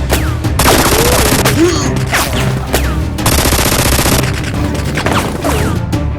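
Two bursts of automatic gunfire sound effects, each about a second long, over dramatic background music, with short falling whistles in between.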